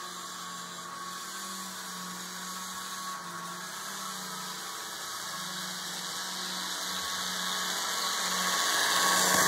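HO-scale model locomotives running on the layout's track, their electric motors and wheels giving a steady whirring hum with a hiss. It grows louder toward the end as the train approaches.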